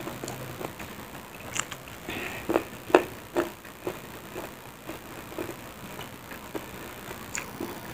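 Close-up eating sounds of a person eating rice and side dishes by hand: wet chewing and lip smacks as a string of short, irregular clicks, the loudest few about three seconds in.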